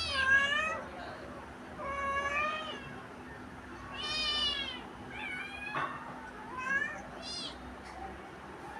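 Kitten meowing repeatedly: about six high-pitched mews, each rising and then falling in pitch, a second or two apart.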